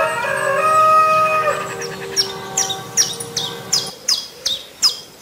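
A rooster crowing, its long held call ending about a second and a half in. It is followed by a bird's high chirps, each falling sharply in pitch, repeated two or three times a second.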